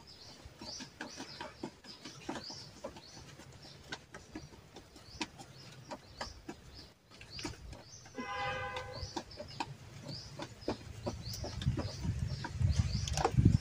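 A small bird chirping over and over, short high chirps about once or twice a second, with a chicken calling once about eight seconds in. Scattered light clicks and rustles, and a low rumble that builds near the end.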